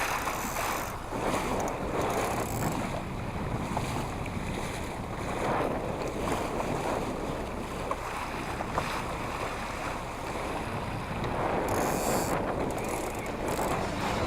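Wind buffeting the microphone over water splashing and rushing, as from a small sailing dinghy under way; the noise swells and eases every few seconds.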